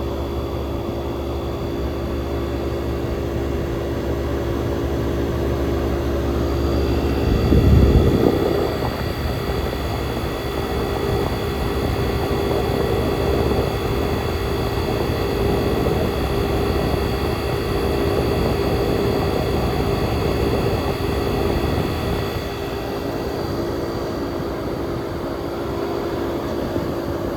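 1967 Chrysler Airtemp Imperial air conditioner running, its Tecumseh AJR compressor and condenser fan giving a steady hum with several steady tones. About eight seconds in a loud whoosh swells and fades, and the deep low hum is much weaker after it.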